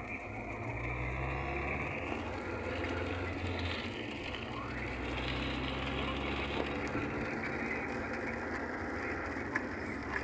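Car driving on a wet, rain-soaked road, heard from inside the cabin: a steady hiss of tyres and rain over a low engine hum.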